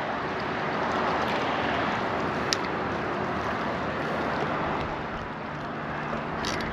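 Steady outdoor wash of small waves against shoreline rocks mixed with wind on the microphone, with a single light click about two and a half seconds in.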